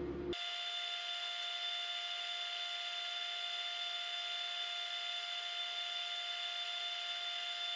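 Steady electric whine of several fixed high tones over hiss, cutting in and out abruptly: the lab's room and equipment hum sped up through a fast-forwarded stretch of video.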